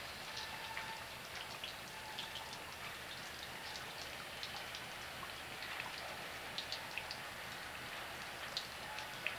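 Light rain: scattered drips ticking close by over a steady hiss.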